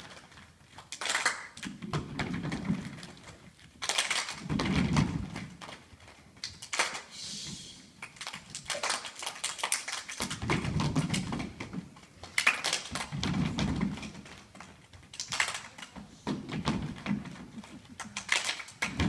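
A group of children clapping and stamping on a wooden stage in a rhythmic body-percussion routine: clusters of hand claps alternate with dull thumps of feet.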